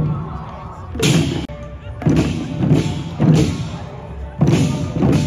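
Marching troupe of waist drums struck together in unison: loud drum beats roughly one to two a second in an uneven, repeating pattern.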